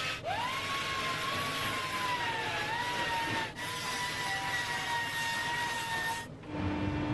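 Narrow-arm belt sander spinning up to a steady whine over a hiss, its pitch sagging a little as the belt grinds the edge of a steel body panel back to the marked line. It breaks off briefly and then stops about six seconds in, leaving a quieter background hum.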